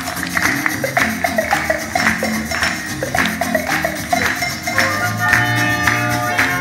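Upbeat dance music with a steady beat played over a PA loudspeaker. About five seconds in, held sustained notes come in over the rhythm.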